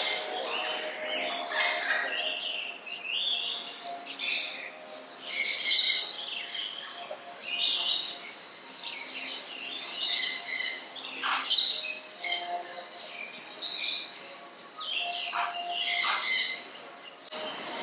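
Birds chirping and calling again and again in short, high notes.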